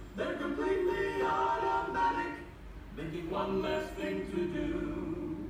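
Music with voices singing long held notes, in two phrases, the second starting about three seconds in.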